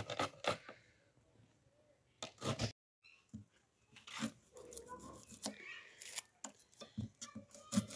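Small kitchen knife peeling the dry skin off an onion: a run of light scrapes, clicks and crackles of papery skin.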